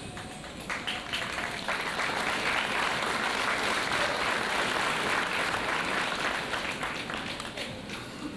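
Audience applauding. The clapping builds about a second in and thins out near the end.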